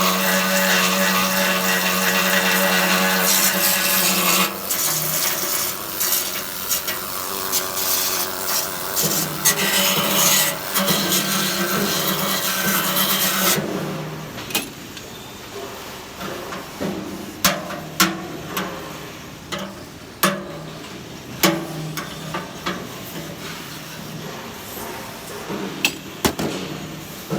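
A power tool on metal runs steadily with a hum, then in short stop-start runs. After that it gives way to a string of sharp knocks and clicks, like metal being tapped and handled.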